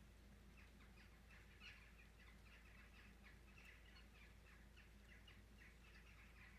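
Faint, rapid chirping of a small bird: a quick run of short high notes, several a second, starting about half a second in, over a steady low hum.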